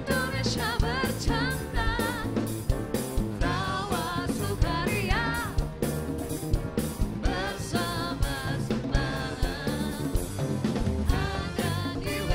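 Upbeat band music with a steady drum-kit beat under a wavering lead melody.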